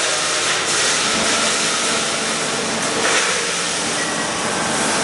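A loud, steady hiss of rushing air that holds level throughout, with no separate strokes or clicks.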